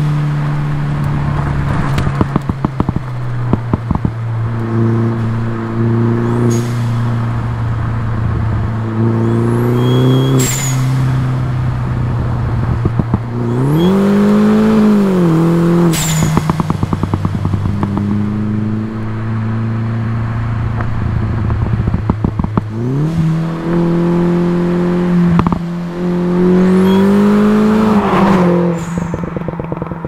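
2012 Mini Cooper S's turbocharged 1.6-litre four-cylinder, fitted with an Alta intake and 3-inch cat-back exhaust, pulling hard up through the revs and dropping sharply at each shift or lift-off, several times over. At several of these drops there is a sharp hiss from the Forge blow-off valve, followed by bursts of rapid crackling.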